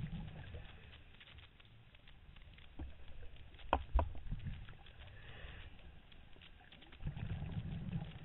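Underwater bubble noise from a scuba diver exhaling through the regulator, one burst at the start and another near the end. A few sharp clicks come near the middle.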